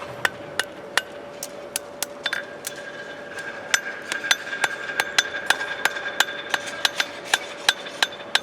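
Farriers' hammers striking steel horseshoes on anvils: a steady run of sharp metallic blows, about three a second and quickening after a few seconds, with the anvils ringing on between strikes.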